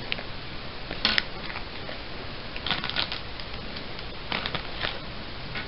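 Small packaged items being handled and set down on a table: three short clusters of light plastic clicks and crackles, about a second in, around three seconds in and again between four and five seconds.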